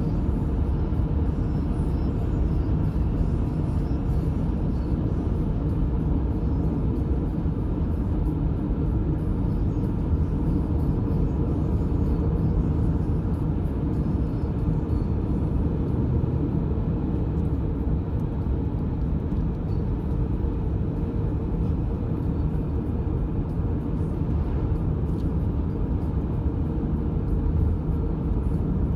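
Road noise heard inside a moving car's cabin: a steady low rumble of tyres and engine at cruising speed.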